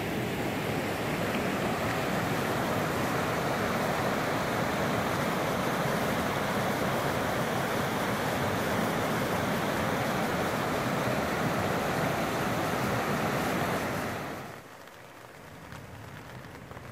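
River rapids: whitewater rushing over rocks in a steady, loud rush. About fourteen seconds in it cuts to a much quieter patter of light rain on a tarp.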